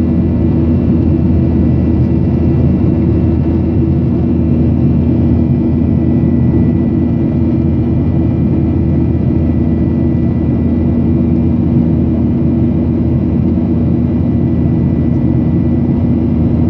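Steady cabin noise of a Boeing 737 in flight, heard from inside by the wing: the jet engines' drone and rushing airflow, with a constant low hum and a faint steady high whine.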